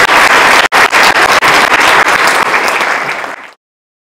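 Audience applauding, a dense, even clapping that fades out abruptly about three and a half seconds in.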